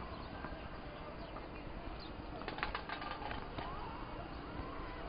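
Steady outdoor background noise on a tennis court, with a brief quick run of sharp clicks about halfway through.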